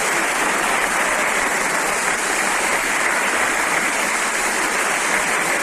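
Studio audience applauding a child's correct answer on a 1948 radio quiz broadcast: a steady, even patter of many hands clapping.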